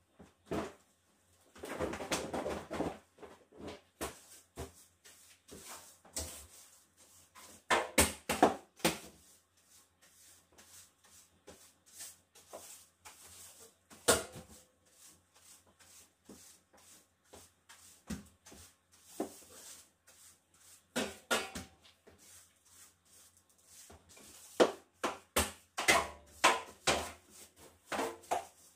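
A broom sweeping a hardwood floor, with scattered sharp knocks and taps of the broom and its handle. About two seconds in, a short rustle as a floor rug is moved.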